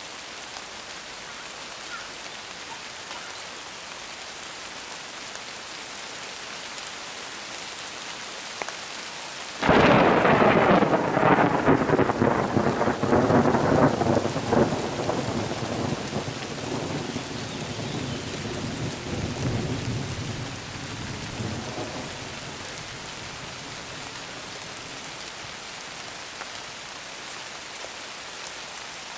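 Steady rain, then about ten seconds in a close lightning strike's thunderclap: a sudden loud crack that crackles for a few seconds, then rumbles and fades away over about ten more seconds, leaving the rain alone.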